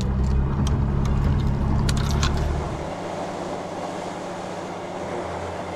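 Low steady rumble of a boat engine with a few sharp clicks. About three seconds in, it gives way to a quieter, even hiss of wind and sea.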